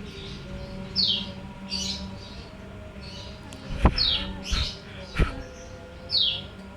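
A bird chirping repeatedly with short, falling chirps, one every second or two. There are two sharp knocks near the middle.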